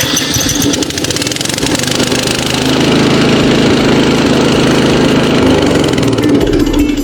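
Gasoline engine of an HH500TM B remote-control lawn mower running just after an electric start, growing louder about two and a half seconds in, then cutting off abruptly at the end.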